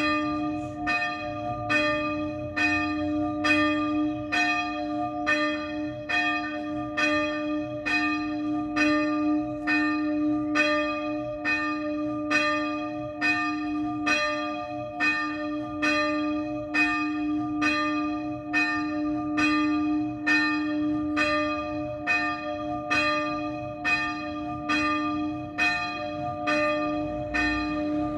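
A single church bell swinging full-circle and striking at a very even pace, a little more than once a second. Its low hum rings on between strokes.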